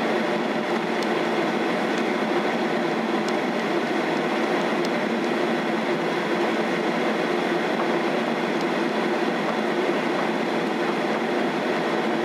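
Steady cabin noise inside a Boeing 737-800 taxiing on the ground, its CFM56 engines at idle, with a low steady tone under the hum and a few faint clicks.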